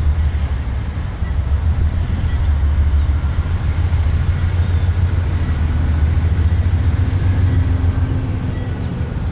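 Low, steady rumble of an approaching CSX freight train's diesel locomotives.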